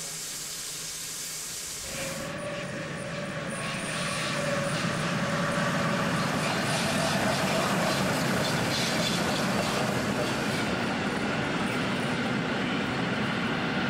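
Baureihe 70 steam tank locomotive: a steady steam hiss while it stands, then from about two seconds in the locomotive working past with its train, a steady rushing of exhaust and running gear that grows louder and stays up.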